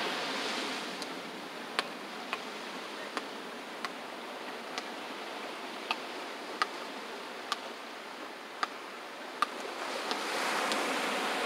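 Ocean surf washing in steadily, swelling again near the end as a wave comes in, with about ten sharp short ticks scattered irregularly through it.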